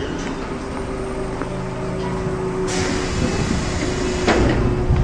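Commuter train standing at the platform with a steady electrical hum; about two and a half seconds in a burst of compressed air hisses, and a sharp clunk follows as the train's sliding doors open.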